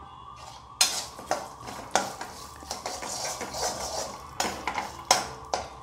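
Perforated metal ladle stirring fried peanuts, cashews and gram in a metal kadai, scraping and clinking against the pan, with sharp knocks about a second in, at two seconds and several near the end.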